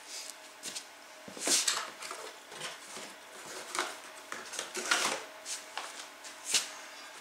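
Parts being handled: cardboard boxes and packaging rustling and knocking, with light metallic clinks and clatter as a metal flex plate is picked up off the concrete floor. The sounds come as irregular short clicks and rustles, the loudest about a second and a half in, around five seconds, and shortly after six.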